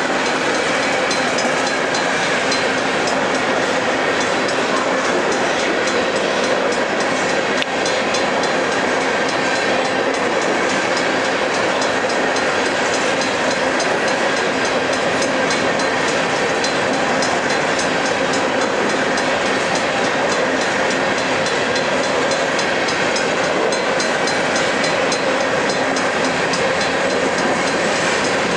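Loaded freight train of covered hopper cars rolling past at steady speed: a continuous rumble and clatter of steel wheels on the rails.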